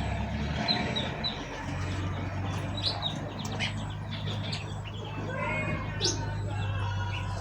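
Several caged songbirds chirping and calling, with short sharp chirps and brief warbled phrases scattered throughout. A steady low hum runs underneath from about two seconds in.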